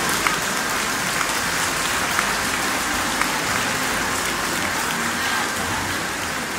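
A large crowd applauding steadily, a dense even patter of clapping. A few sharp cracks stand out about a second apart in the first half.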